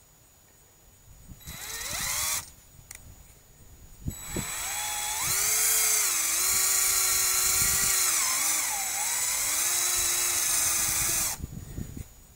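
Cordless drill with a 1/8-inch bit drilling a weep hole through the PVC discharge pipe of a sump pump. It spins up briefly about two seconds in, then runs again from about four seconds until near the end. Its whine rises, holds and dips as the trigger and load change.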